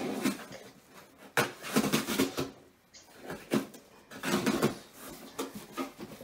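Scissors cutting through the packing tape on a cardboard shipping box, scraping and tearing in several short bursts, as the box is slit open.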